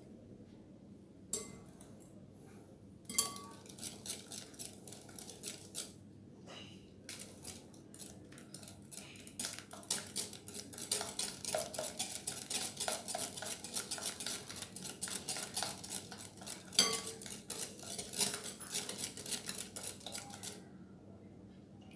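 Metal wire whisk beating eggs in a glass bowl, its wires clicking against the glass. It starts with a few scattered strokes, then settles into fast, even whisking that stops shortly before the end.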